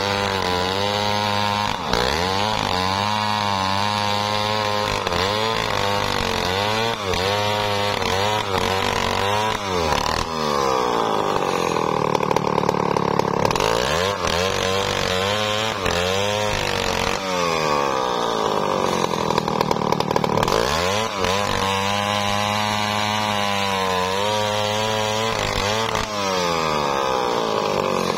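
Home-assembled two-stroke chainsaw ripping lengthwise through an albasia log, running near full throttle. Its engine pitch sags and climbs again every few seconds as the chain bites into the wood, with two longer spells held at steady high revs partway through.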